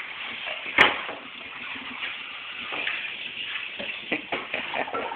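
Dough being kneaded by hand on a metal baking tray: soft irregular knocks and rustles, with one sharp click about a second in.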